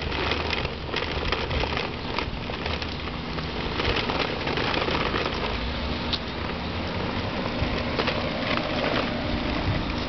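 Plastic wheels of a toddler's push walker rolling over rough asphalt: a steady rolling noise with scattered clicks.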